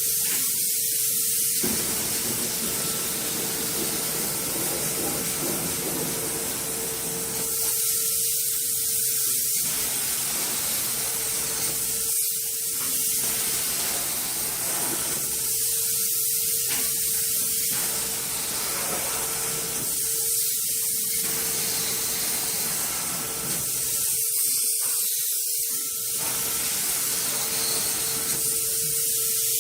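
Spray gun hissing steadily, with a steady hum under it.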